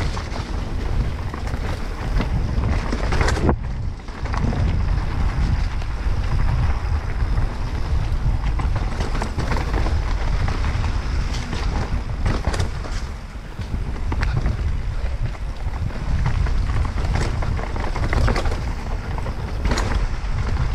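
Wind buffeting the microphone of a mountain biker's camera on a fast descent, a steady low rumble broken by scattered knocks and rattles of the bike over rough trail.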